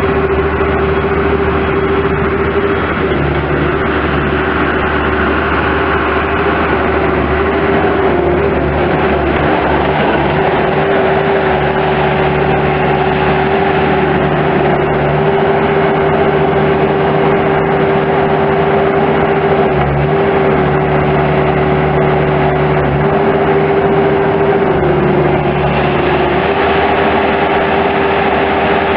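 Bobcat S185 skid steer loader's diesel engine running steadily with a constant whine, the pitch dipping briefly a few times.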